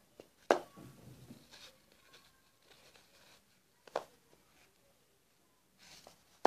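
Handling noise from a crocheted yarn piece being turned in the hands: faint rustling and scratching, with a sharp click about half a second in and another about four seconds in.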